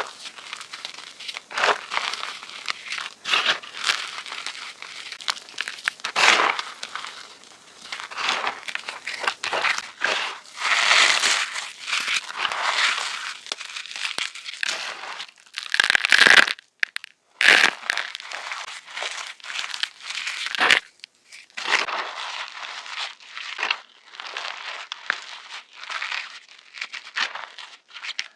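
Fresh gym chalk blocks being crushed and crumbled, a steady run of irregular crunches and crackles with an added echo effect.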